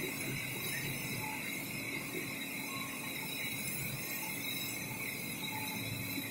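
Coating lamination machine running: a steady mechanical hum and hiss with a thin high whine held at one pitch.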